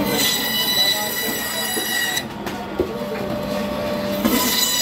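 Electric band saw running with a steady hum, its blade whining as it cuts through a chunk of large catfish for about two seconds, then again near the end as the next piece is pushed through.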